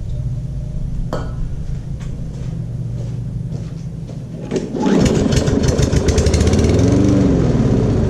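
Toro self-propelled lawn mower's small engine firing: after a steady low hum, it catches about five seconds in and runs loudly, its speed rising and then falling. It fires but doesn't keep running on its own, a sign it has spark but isn't getting fuel.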